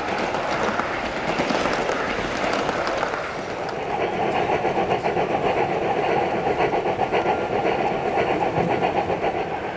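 Gauge 1 (1:32 scale) model train running on the layout track. At first, model coaches roll past; from about three and a half seconds in, there is a fast, even rhythmic pulsing as two model steam locomotives run together.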